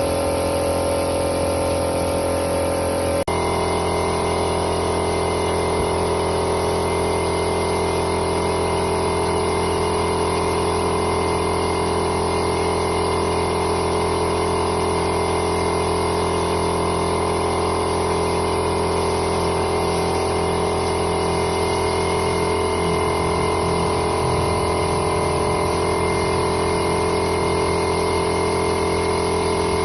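A motor-driven machine running steadily with a hum of several steady tones, its pitch pattern shifting abruptly a little over three seconds in and then holding steady.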